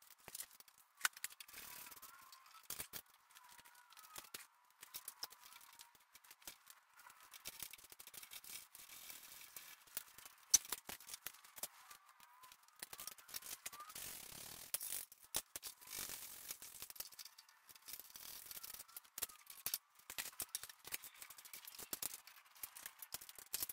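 Faint, scattered metallic clicks and clinks of hand tools: spanners being handled and worked on the car's front suspension fittings. One sharper knock comes about ten and a half seconds in.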